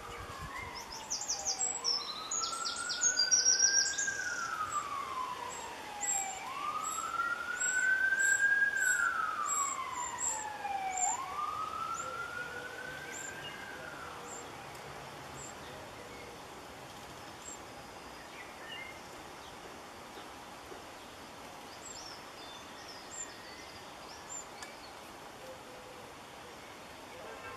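An emergency-vehicle siren wailing, each cycle rising quickly and falling slowly, about four cycles before it fades out about halfway through. High, thin chirps from wrens at the nest box come over it in quick series near the start and in the middle, with a few faint ones near the end.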